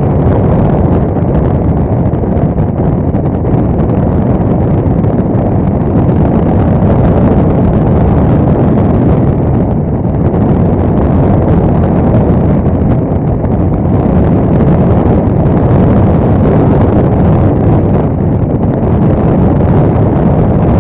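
Loud, steady rush of airflow buffeting the microphone of a camera mounted on a hang glider's wing in flight, a low rumble with no breaks.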